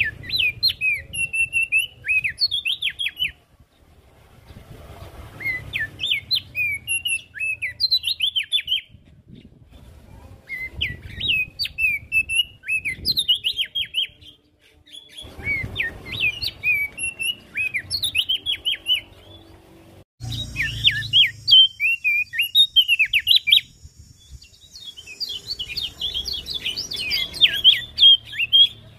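Opior jambul (Javan grey-throated white-eye) singing: six bouts of quick, rising and falling chirps, each about three seconds long with short pauses between.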